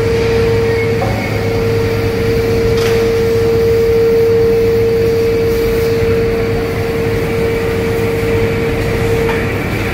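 Steady industrial din of an induction-furnace melt shop during a furnace tap into a ladle, a low hum under a constant mid-pitched whine. The whine breaks off briefly about a second in and again near the end.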